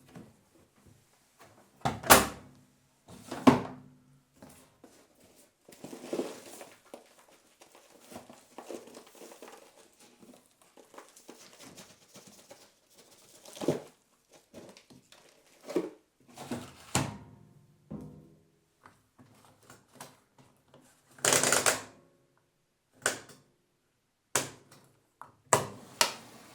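Automatic washing machine being loaded: a string of knocks and thunks from its lid or door and the drum being handled, about ten in all with the loudest early on, and soft rustling between them.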